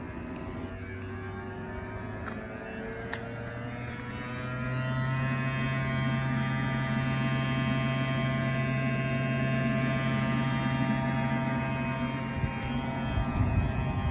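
Tesla Model 3 air conditioning giving off a buzzing hum, a stack of tones that climbs in pitch and grows louder a few seconds in, then holds steady. There is one sharp click at about three seconds. The owner takes the buzz for an unusual new noise: it stops the moment the AC switches off.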